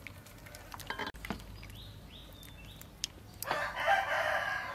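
A rooster crowing once about three and a half seconds in, the loudest sound here, after three short high clucking calls. Underneath, soft clicks and a knock from a wooden spoon stirring a wet chili-pickled vegetable mix in a bowl.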